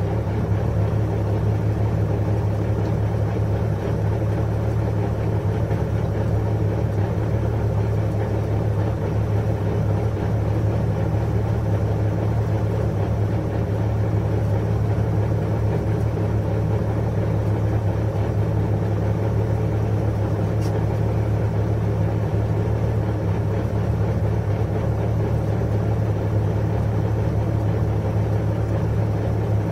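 Porsche 911 GT3 RS flat-six engine idling steadily with the car at a standstill, heard from inside the cabin.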